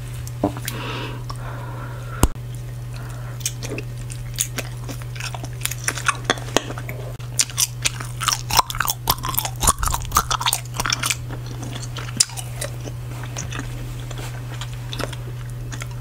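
Bubble gum chewed right at the microphone, with many wet smacks and clicks that are thickest in the middle. A single sharp snap comes about two seconds in.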